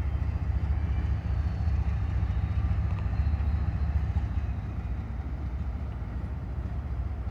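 Norfolk Southern diesel-electric locomotives running, a steady low engine rumble that eases slightly over the last couple of seconds.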